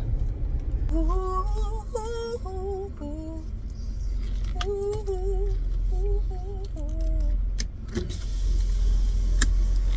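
A woman humming a wavering tune in two short phrases inside a car, over the steady low rumble of the idling engine. A few sharp clicks come near the end.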